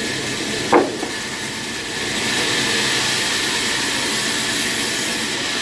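Steady hissing machine noise, getting slightly louder about two seconds in, with a brief sweep about a second in.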